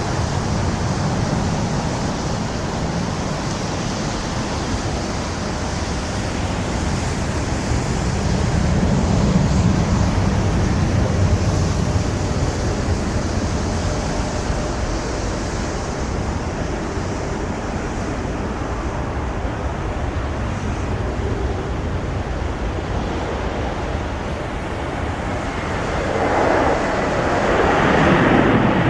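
Boeing 737-800's CFM56 jet engines on approach: a steady rushing with a faint whine, mixed with wind on the microphone, swelling louder near the end as the plane draws near.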